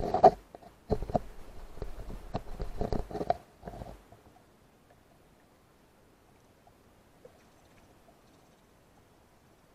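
Handling noise on an underwater camera as it sinks through lake water: a close run of knocks, clicks and low rumbling that stops about four seconds in. After that only a faint underwater hiss with a few small ticks.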